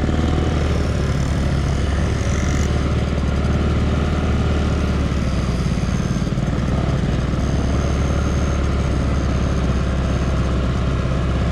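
Grizzly 200cc ATV engine running at a steady pitch while under way.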